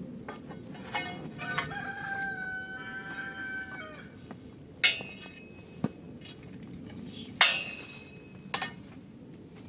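A rooster crowing once, one long held call of about three seconds, with several sharp knocks around it; the loudest knocks come about five and seven and a half seconds in.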